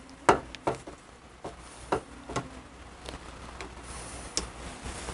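A handful of light, scattered metallic clicks and knocks as a steel rivet-setting tool and a clutch hub are shifted about in a bench vise. This happens while new lining is riveted onto a 1948 Harley-Davidson Panhead clutch hub, between hammer blows on the rivets.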